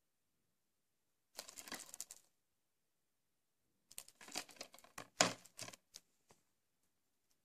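A shrink-wrapped plastic DVD case being handled, its cellophane wrap crinkling and clicking in two bursts. It ends with a knock about five seconds in as the case is laid down on the plastic-covered table.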